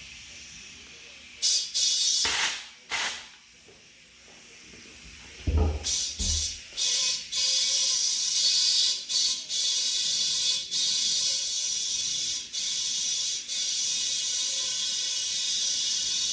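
Compressed air hissing from an air hose into a small tire as it is aired up. It comes in a few short bursts at first, then runs nearly continuously with brief interruptions, and there is a low thump about five and a half seconds in.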